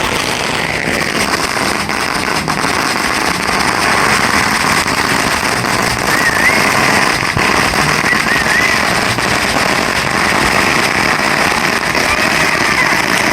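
Fireworks crackling continuously, a dense stream of rapid small pops, with a few short wavering whistles around the middle and again near the end.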